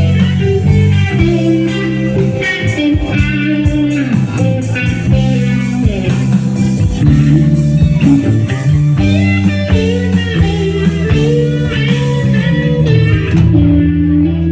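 Live rock band playing an instrumental passage: electric guitar lead with bending notes over bass guitar and drums.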